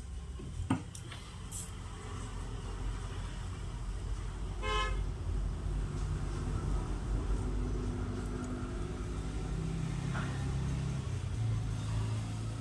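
Steady low rumble of traffic, with a short vehicle horn toot about five seconds in. A sharp click sounds near the start.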